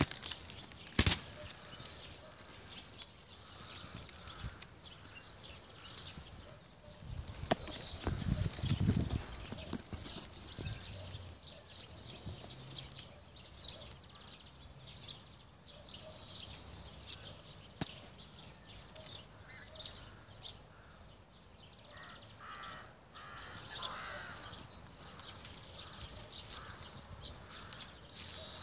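Small birds chirping and calling throughout, with a run of lower, repeated calls near the end. A few sharp clicks and a brief low rumble, about a third of the way in, come from the phone being handled.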